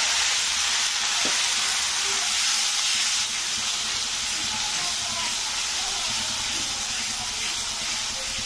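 Spice masala of fried onions, ginger-garlic paste, turmeric and chilli powder sizzling and steaming in a hot pan, with a little water just added: a steady hiss that eases slightly about three seconds in.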